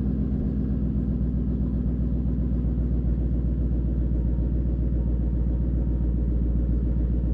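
2014 Mustang GT's 5.0-litre V8 idling steadily after a cold start, exhaling through Roush axle-back mufflers with a deep, even rumble.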